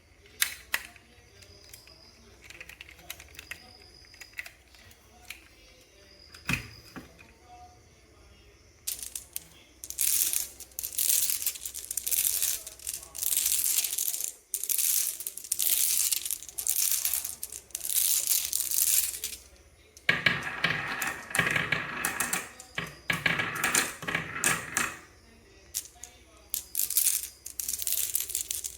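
Marbles clattering and rattling down a wooden marble run. Faint scattered clicks come first, then repeated stretches of fast rattling from about a third of the way in, with the fullest, loudest run around three quarters of the way through.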